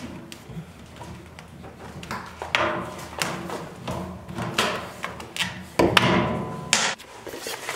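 Lengths of PVC drain pipe and elbow fittings being pulled apart, handled and set down on a concrete floor: a series of knocks and thuds, the loudest about six seconds in.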